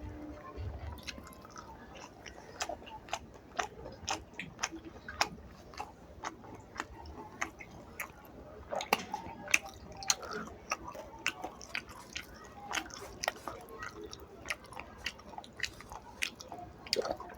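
Close-up chewing and mouth sounds of someone eating rice and fish curry: wet smacks and clicks that come at irregular intervals, several a second at times.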